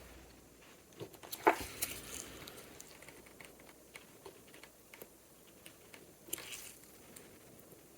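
Small clicks, ticks and brief scrapes of steel tweezers working on a tiny mechanical watch movement, prying the pallet fork free. The loudest sharp click comes about a second and a half in, with a short scratchy scrape later on.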